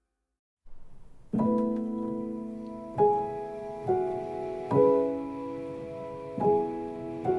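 Background instrumental music of slow sustained chords. It begins about a second in, after a moment of silence, and a new chord is struck every second or two.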